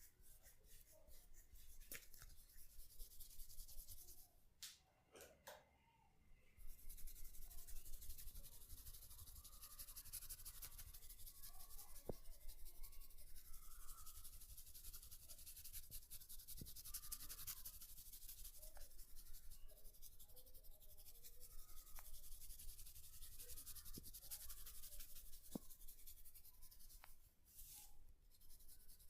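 Faint, rapid scratching and rubbing through hair on the scalp during a head massage, with a short lull and a few light clicks a few seconds in before the scratching picks up again.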